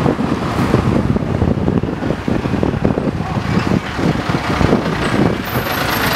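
Engine of a Diablo Rojo chicken bus, a painted converted school bus, running as it turns the corner and passes close by, over street traffic noise.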